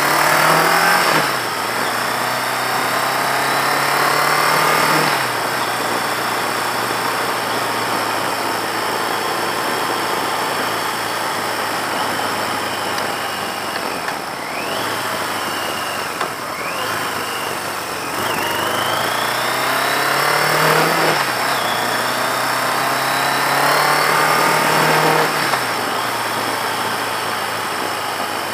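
1982 Yamaha XJ650's air-cooled inline-four engine running under way. Its pitch climbs and then drops off sharply four times: about a second in, around five seconds, and again around twenty-one and twenty-five seconds, with steadier running in between.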